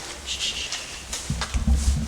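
Footsteps and rustling, with scattered clicks and a few heavy low thumps about a second and a half in.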